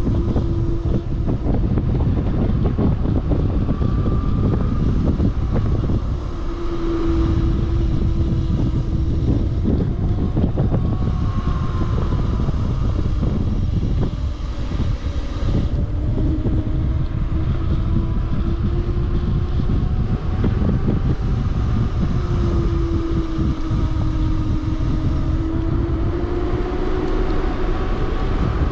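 Wind buffeting the action camera's microphone while riding a bicycle, a loud rumble, with a hum that comes and goes and drifts slightly up and down in pitch.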